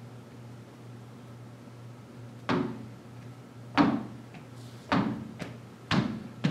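Block squeegee strokes across wet window film on glass, pushing the application water out from behind the film: about five quick strokes, roughly one a second, from about two and a half seconds in, each starting sharply and trailing off.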